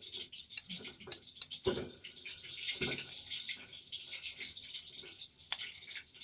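Food sizzling in a frying pan, a steady hiss, with a few sharp clinks and two duller knocks of a spatula against the pan.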